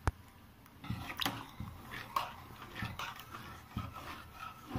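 A spoon stirring liquid payasam in an aluminium pressure-cooker pot, with scattered light scrapes and taps against the metal. There is one sharp click right at the start.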